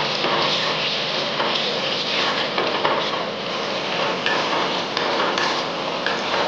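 Potato and pointed-gourd curry bubbling in an iron wok as a ladle of masala liquid is poured in, then stirred with a spatula that clicks and scrapes against the pan.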